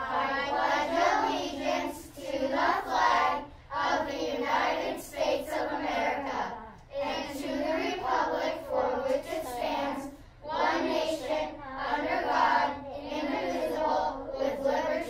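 A small group of children singing together in unison, in phrases of a couple of seconds with short breaths between.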